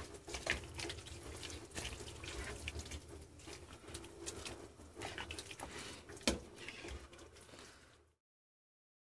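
Pot of soup bubbling and simmering, with faint irregular pops and a sharper knock about six seconds in. The sound cuts off to silence about a second before the end.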